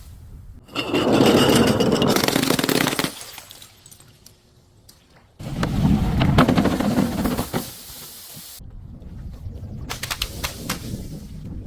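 Objects being crushed: two loud spells of dense crunching and breaking, the first about a second in and the second about halfway, each lasting around two seconds, followed by a run of scattered sharp cracks and snaps.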